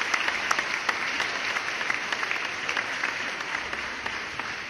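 Audience applause: many hands clapping in a steady patter that thins out slightly near the end.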